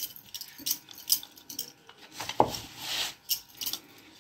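A rolling pin rolling out a stuffed paratha on a round board, with bangles on the wrists clinking in light, irregular taps and a louder knock about two and a half seconds in.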